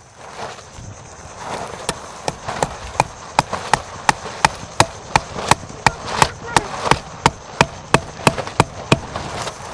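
A steady run of sharp knocks, about three a second, starting about two seconds in, like repeated striking on wood or a stake.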